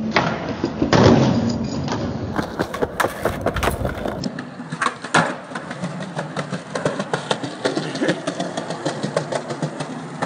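Skateboard wheels rolling over concrete with a steady rumble, broken by sharp clacks and knocks as the board is popped and landed.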